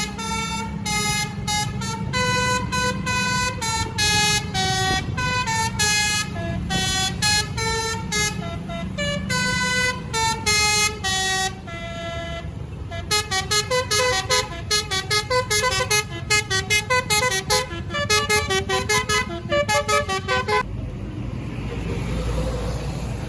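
A bus's 'basuri' telolet musical air horn playing a tune, first in held notes stepping up and down in pitch, then about halfway through a fast run of short staccato notes. The horn stops near the end, leaving the low rumble of the bus.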